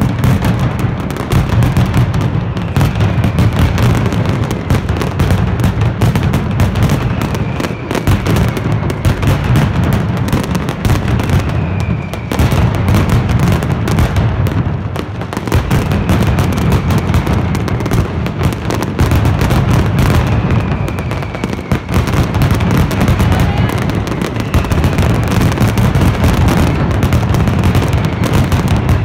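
Mascletà: masclet firecrackers going off in a continuous, rapid barrage of loud bangs with heavy low booms. Faint falling whistles cut through now and then.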